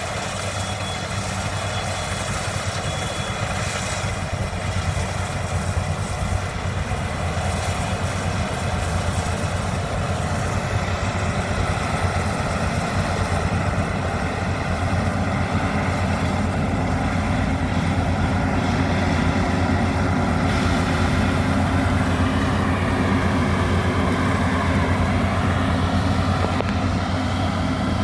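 Maxxi Bimo 102 rice combine harvester running steadily, engine and machinery together, growing gradually louder.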